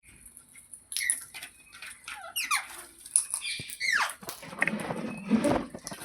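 Pet parrot calling: a run of short, squeaky chirps and screeches with quick falling notes, turning harsher and raspier near the end.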